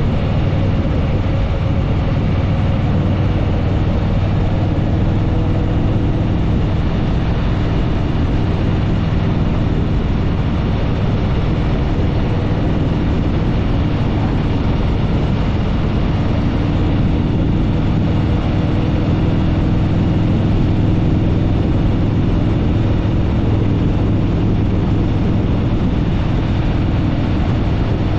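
Harley-Davidson Fat Boy Lo's V-twin engine running steadily at cruising speed, with road and wind noise.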